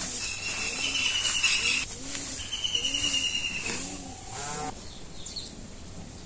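Farm animals calling, with short low calls repeating about once a second, over a high pulsing trill that comes in spells of about a second and a half and stops a little past halfway.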